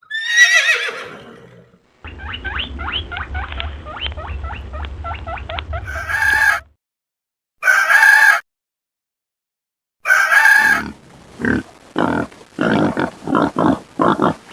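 A string of separate farm animal recordings. It opens with a falling pitched call, followed by a rapid train of clucks over a low hum. Three short pitched calls come next, and near the end a run of short, low grunting calls.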